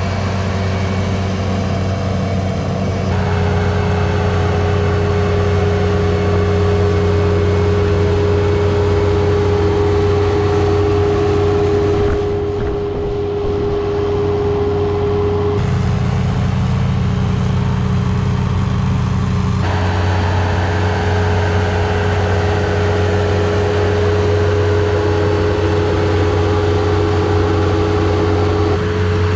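Bobcat T190 compact track loader's diesel engine running steadily under load as it pulls a soil conditioner through infield dirt. It is a constant drone, and its tone changes abruptly a few times.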